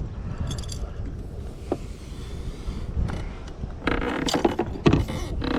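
A fishing reel being cranked, its worn gears grinding and squeaking, with a couple of sharper knocks about four and five seconds in.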